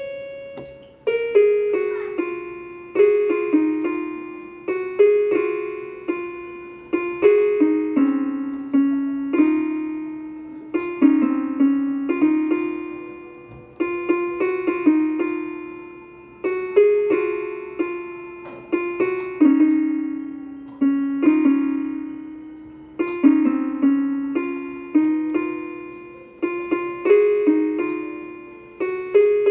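Casio electronic keyboard playing a slow melody on its harp voice: plucked notes, each struck sharply and fading away, sometimes in quick runs of two or three.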